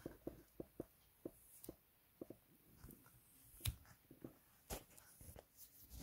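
Fingers squeezing, poking and crumbling kinetic sand: faint, irregular soft ticks and crackles, with a couple of sharper clicks near the middle.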